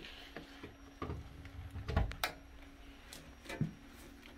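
A few light clicks and knocks as the electric cart's coiled charging cord is handled and plugged into a wall outlet, over a faint steady hum.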